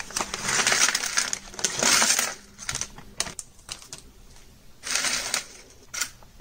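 Plastic bag of small electronic components crinkling as it is handled and emptied, then the loose parts clicking and rattling as they drop and are spread about in a plastic storage box. The crinkling is loudest in the first couple of seconds, and scattered clicks and short rustles follow.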